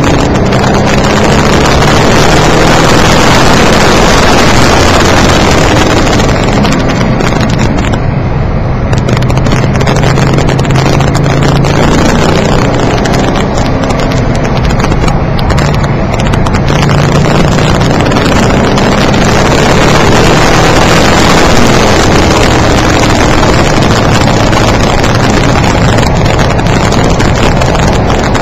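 Car engine and road noise heard inside the cabin while lapping a race circuit, recorded on a microphone set too sensitive, so it is very loud and sounds distorted. The engine note rises and falls with the throttle, easing off briefly about a quarter of the way through.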